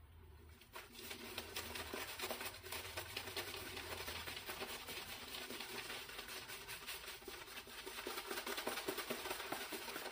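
Wet synthetic shaving brush working soap lather over the face: quick, faint rubbing strokes that start about a second in and run on steadily.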